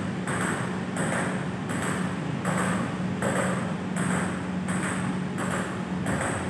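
Table tennis ball being struck in a steady rhythm, about one hit every three-quarters of a second, each hit ringing on briefly in the hall, over a steady low hum.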